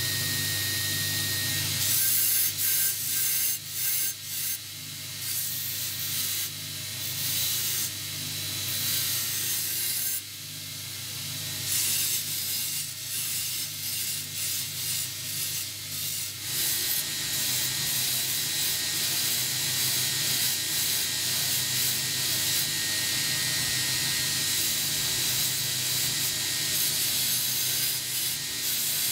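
Belt grinder running, its abrasive belt grinding the edge of a steel knife blank cut from an old saw blade. A steady motor hum sits under a harsh hiss of steel on the belt that breaks off and resumes as the blank is pressed on and lifted, running more evenly in the second half.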